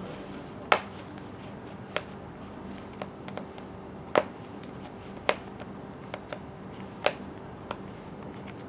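Slime being squeezed and worked in the hands, giving about ten sharp, irregularly spaced pops and clicks over a faint steady hum.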